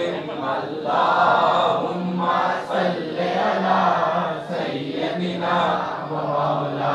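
A man chanting a naat, an Urdu devotional poem in praise of the Prophet, into a microphone, in long held phrases with short breaks between them.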